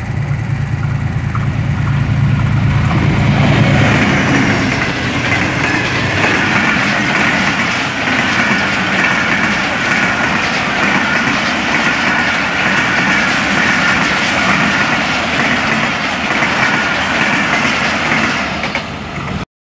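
Passenger express train passing close by: a deep diesel-locomotive engine drone for the first few seconds, then the steady rumble and clatter of coach wheels running over the rails, which cuts off suddenly near the end.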